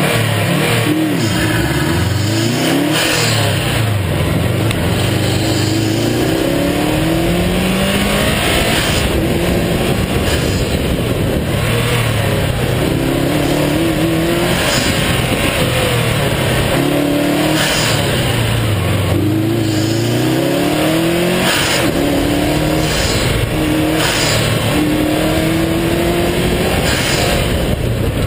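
Car engine driven hard through an autocross cone course, its pitch climbing and dropping every few seconds as it accelerates, shifts and slows between cones.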